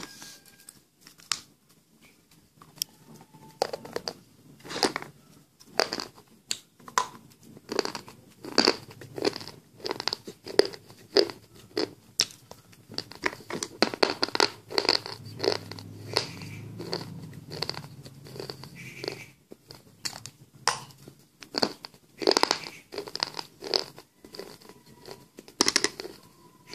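Slate pencil pieces being bitten and chewed: a long run of sharp, dry crunches at an uneven pace, about one or two a second.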